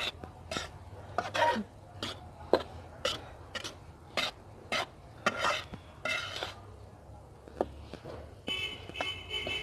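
Metal spatula stirring and scraping a dry, roasting mixture of flour, ground flaxseed and nuts around a metal wok, about two strokes a second. Near the end a steady high-pitched tone joins in.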